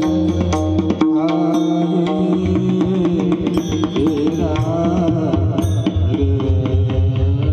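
Devotional singing with mridang drumming: a voice sings a wavering melodic line over rapid hand-drum strokes and a steady held drone note.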